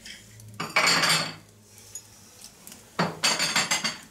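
Dishes and cutlery clattering in two bursts, the first about half a second in and the second near the end.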